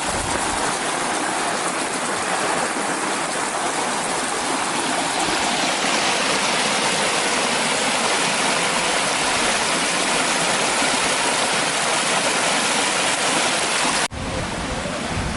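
Steady rush of a small canyon waterfall and stream splashing over rocks. Near the end it cuts off abruptly to a duller rush with more low rumble.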